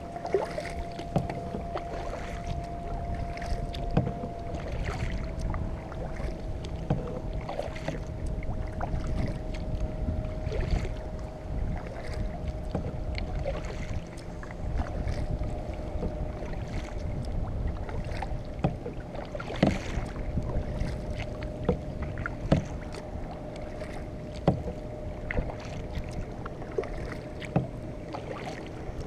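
Kayak paddling: the paddle blades dip and splash in the water and the hull knocks now and then, over a low wind rumble on the microphone. A faint steady whine sits under it all and drops slightly in pitch about five seconds in.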